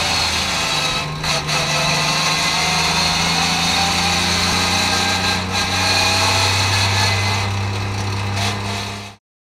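Porsche 991 GT3 Cup's flat-six engine running steadily at low revs while the car rolls slowly in first gear, heard from inside the cockpit. It cuts off abruptly near the end.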